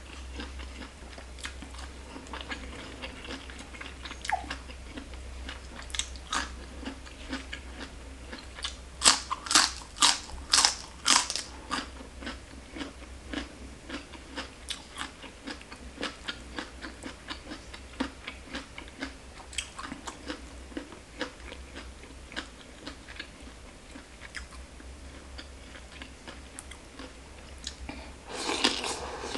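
Close-miked chewing of som tam, green papaya salad with pickled crab, with many small wet clicks and a run of loud crisp crunches around ten seconds in. Near the end a rougher burst of noise comes as a fresh handful goes into the mouth, over a steady low hum.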